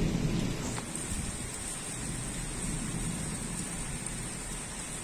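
Steady heavy rain during a thunderstorm, with a low thunder rumble fading away in the first second.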